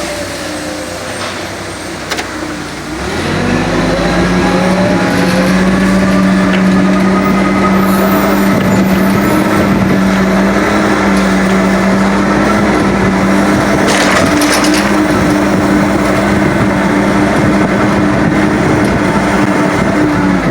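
Forklift running and driving: a steady motor hum that grows louder about three seconds in and holds.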